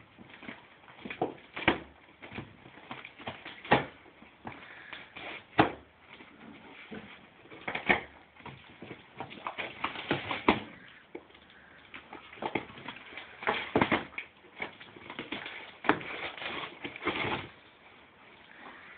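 A dog tearing open a cardboard box with its teeth: irregular ripping and crunching of cardboard, with sharp cracks scattered throughout.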